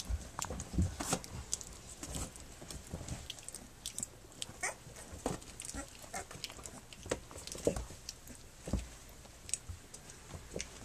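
Three-week-old Standard Schnauzer puppies wrestling and play-biting: irregular scuffling, mouthing and chewing noises, with a few short, high squeaks.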